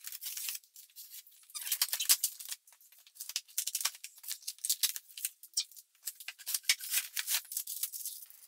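Packing tape on a cardboard box being slit and pulled apart, then the cardboard flaps scraping and crinkling as they are folded open; a run of quick, irregular crackles and scrapes with a short pause a little after the first second.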